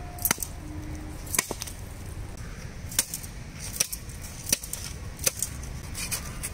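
A large knife chopping through the body of a big marlin just behind the head, in sharp single blows roughly once a second.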